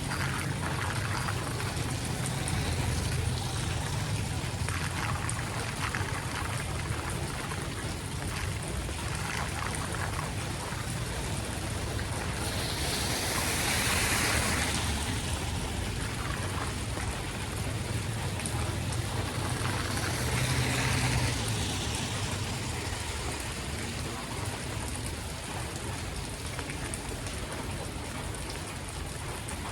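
Rain falling and floodwater running on a street, a steady rushing hiss with a low rumble under it. It swells louder twice, about halfway through and again about two-thirds of the way in.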